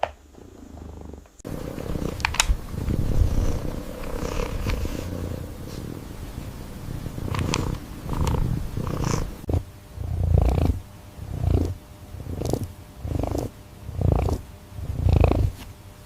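A cat purring: a low, steady rumble that swells and fades about once a second, most clearly in the second half.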